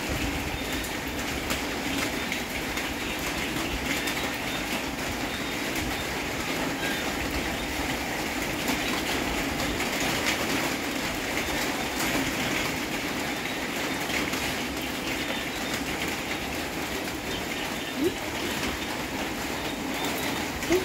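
Steady rain falling: a dense, even hiss full of small taps. Two short rising squeaks come near the end.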